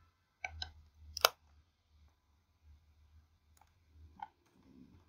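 About five sharp clicks from a computer keyboard and mouse, spread unevenly, the loudest about a second in, over a faint low hum.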